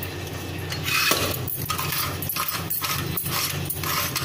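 Steel sev press (sancha) being handled and fitted together, giving a run of light metallic clinks and knocks from about a second and a half in, over a steady low hum and hiss.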